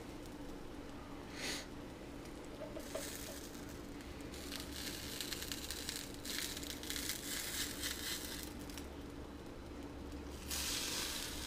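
Pancake batter sizzling softly on a hot electric skillet while a spatula is worked under the pancakes. The sizzle swells in waves and grows louder about ten seconds in, as a pancake is flipped wet side down onto the hot surface.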